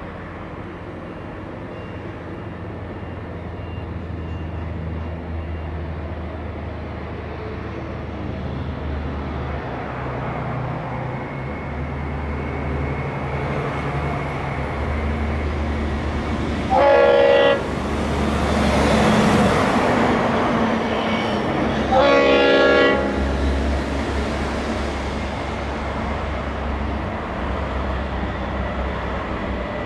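Approaching freight train hauled by G-class diesel locomotives: a low diesel rumble slowly growing louder, with two loud blasts of the locomotive's multi-tone air horn, each about a second long and some five seconds apart. Between the blasts a truck passing on the road beside the line swells and fades.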